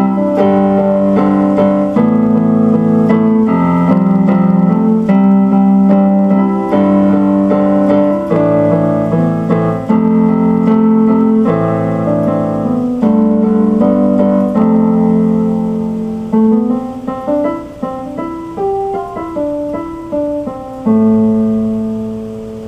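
Instrumental piano music: steady chords that thin out into slower single notes and end on a held chord that fades away.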